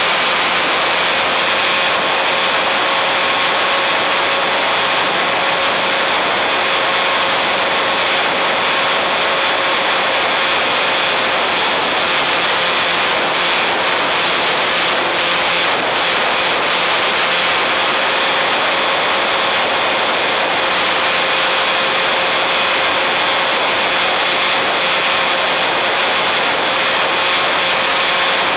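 Radio-controlled model airplane in flight, heard from its onboard camera: a steady electric motor and propeller whine over heavy wind rush, holding an even pitch throughout.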